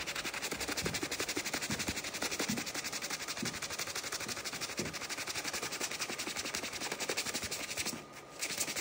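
Bristle brush head of a foaming sneaker-cleaner bottle scrubbing a white sneaker's upper in rapid back-and-forth strokes, several a second. It stops briefly about eight seconds in.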